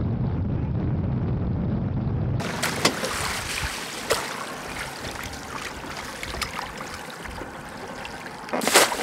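Outboard motor of a fishing boat running under way, a low rumble. About two seconds in it gives way to water lapping and sloshing around a landing net dipped over the side, with small knocks and a louder splash near the end as the net is lifted.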